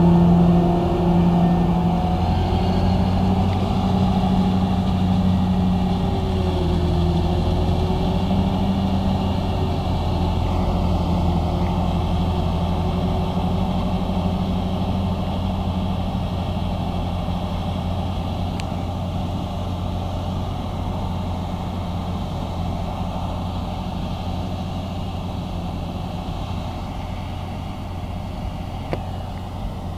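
New Holland self-propelled forage harvester with an IVECO FPT engine running under load, chopping maize for silage: a steady drone that slowly fades as the machine moves away.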